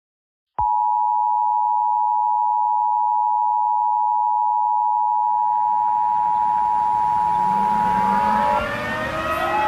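Emergency Alert System two-tone attention signal: two steady tones close together just under 1 kHz, sounding together. It starts abruptly about half a second in and cuts off near the end, announcing an incoming emergency alert. From about five seconds in, a civil defense siren fades in underneath and rises in pitch near the end.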